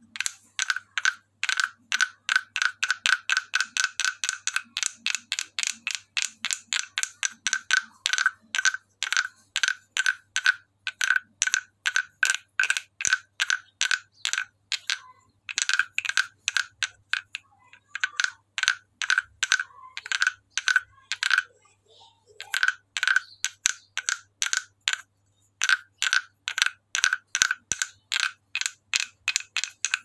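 Hand-carved wooden croaking frog (Thai frog guiro) played with its wooden stick in quick strokes, about five a second. Each stroke gives a short, hollow wooden knock at the same pitch, with a few brief pauses between runs.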